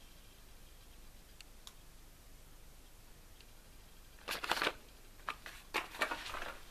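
Quiet for about four seconds, then several short bursts of rustling and rattling as small packaged fireworks are handled and shifted about in a plastic bucket.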